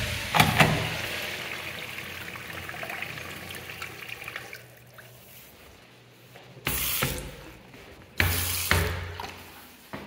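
Water rushing through a sensor-operated flush valve, a hissing flow that fades out over about four seconds, with a couple of sharp knocks about half a second in. Later, two short louder bursts come about a second and a half apart.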